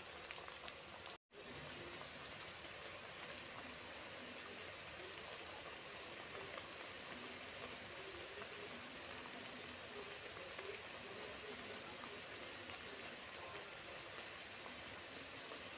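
Spinach and onion pakoras deep-frying in hot oil in a kadhai: a faint, steady bubbling sizzle as they crisp on their second side after being turned. The sound cuts out completely for a moment about a second in.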